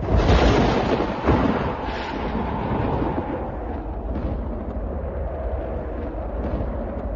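A thunderclap breaking suddenly, followed by a long rolling rumble of thunder that eases off a little but carries on.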